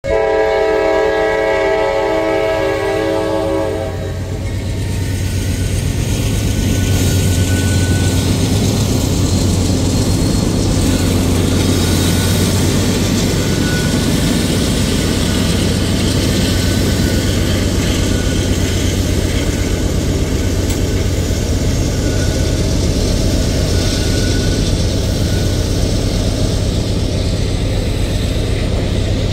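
Norfolk Southern diesel locomotive's multi-note air horn sounding steadily for about four seconds, then the passing freight train: locomotive engines and steel wheels on rail making a steady low rumble that swells slightly as the engines go by, with freight cars rolling past behind them.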